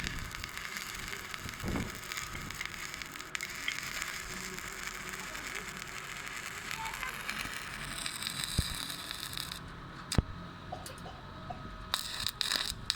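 Stick-welding arc with a 6013 electrode crackling and hissing steadily on thin sheet iron. The arc cuts off about ten seconds in, and a few sharp knocks follow.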